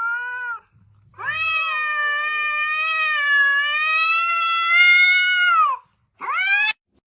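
A cat meowing three times: a short meow, then a long drawn-out meow lasting about four and a half seconds, then a brief rising meow near the end.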